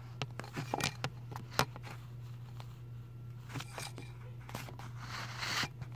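Scattered small plastic clicks and knocks of a Polaroid Snap camera and tripod being handled and fitted together, with a brief rustle about five seconds in, over a steady low hum.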